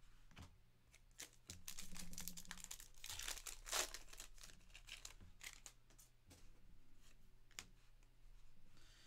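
Pack wrapper of a Panini Certified football card pack being torn open and crinkled, with light clicks of cards being handled; the crinkling is loudest about three to four seconds in.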